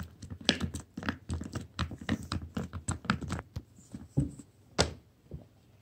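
Red plastic spoon stirring a thick flour, oil and dish-soap slime in a small glass bowl: quick, irregular clicks and scrapes of the spoon against the glass and through the sticky mixture, with one sharper click near the end before it stops about five seconds in.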